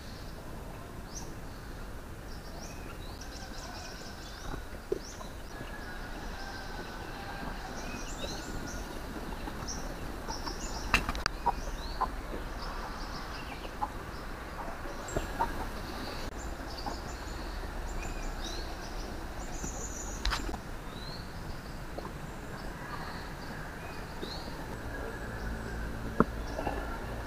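Native chickens clucking, with small birds chirping in short high calls throughout and a few sharp clicks.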